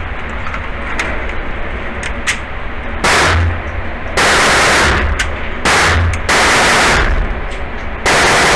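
Bersa Thunder .380 pistol fired five times, the first about three seconds in and then roughly a second apart, with a pair close together in the middle. Each shot overloads the microphone into a long, distorted blast that echoes in the indoor range.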